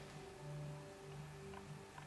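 Faint background music with a few held low notes.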